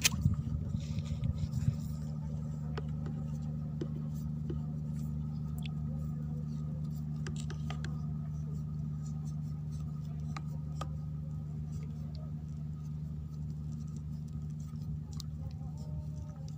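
Steady low hum with scattered faint clicks and ticks.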